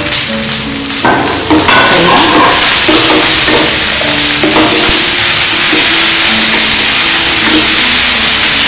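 Sliced onions, green chillies and tomato sizzling in hot oil in a non-stick wok as they are stirred with a wooden spatula. The sizzle swells to a steady, loud hiss a little under two seconds in.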